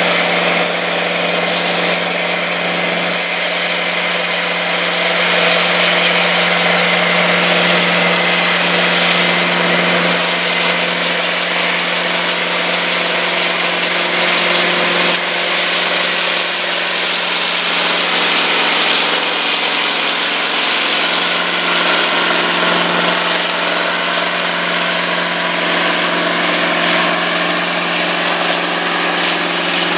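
Two Massey Ferguson articulated four-wheel-drive tractors, a 5200 and a 4880 hitched in tandem, running their diesel engines under load as they pull a large moldboard plow. The sound is a loud, steady low drone.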